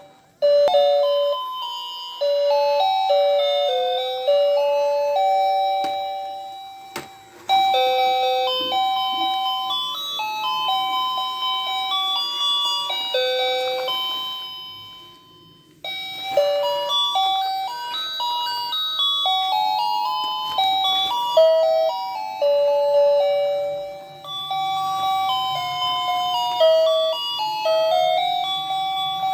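Toy ice cream cart playing its built-in electronic tune: a simple melody of clean, chime-like notes, one at a time. The tune stops and starts again three times.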